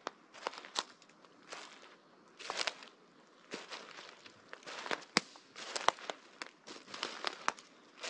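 Footsteps crunching over fallen leaves and twigs on a forest floor, about one step a second, with small branches snapping sharply underfoot.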